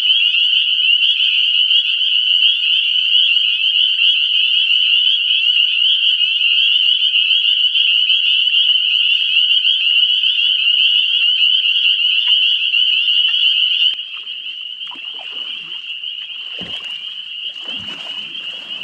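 A dense chorus of frogs calling, a continuous shrill high-pitched trilling. About fourteen seconds in, the chorus suddenly drops quieter, and scattered low rustles and knocks come in near the end.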